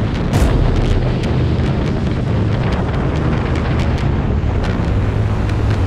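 Harley-Davidson motorcycles running at highway speed: a steady low engine rumble with wind buffeting the microphone.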